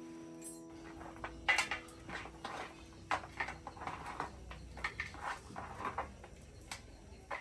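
Cooking utensils clinking and knocking against pots and dishes in an irregular series of short strikes.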